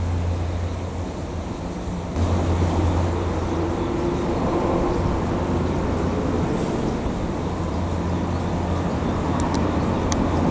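Diesel shunting locomotive's engine running steadily in the yard, stepping up in level about two seconds in, with a few sharp clicks near the end.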